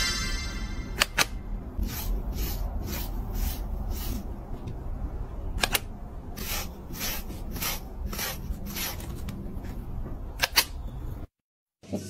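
Slicker brush raking through a cat's fur: repeated short swishes, about two a second, with a few sharper clicks, over a low steady rumble. It cuts off near the end.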